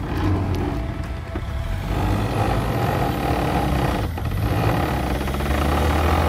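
Land Rover Freelander's engine running under load as the SUV clambers through a rutted gravel ditch, a steady low rumble with a brief dip about four seconds in.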